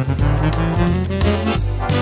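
Swing jazz big-band music playing, with a steady beat and a busy run of melody notes.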